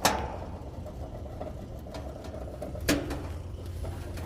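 Two sharp metallic clicks about three seconds apart as a wrench works the service (king) valve on a condenser, over a steady low machine hum.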